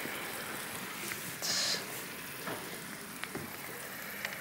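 Honey, oil and lemon-juice glaze sizzling and bubbling in a hot pan, with small scattered pops and a brief louder hiss about a second and a half in.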